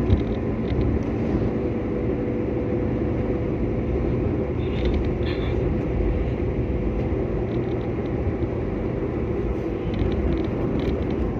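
Steady road and engine noise of a car being driven, heard from inside the cabin, with a brief knock right at the start.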